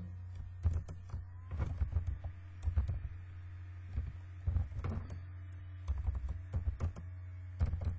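Computer keyboard typing in short bursts of keystrokes with brief pauses between them, over a steady low electrical hum.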